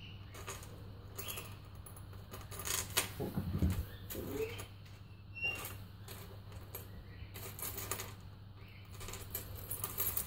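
Three-row chromed metal chain dog collar being handled on a hard worktop: the chain links clink and jingle in irregular bursts, with sharper clacks as the rings are lifted and let fall, loudest a few seconds in.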